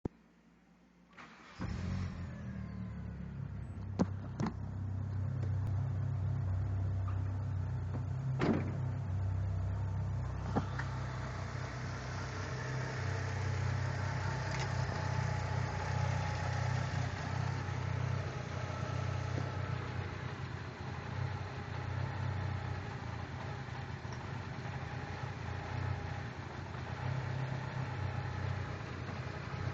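A 6-bolt 4G63 four-cylinder engine, swapped into a 1996 Mitsubishi Eclipse Spyder, starts about a second and a half in and then idles. This is the rough idle that sets no trouble codes. A few sharp clicks come in the first ten seconds.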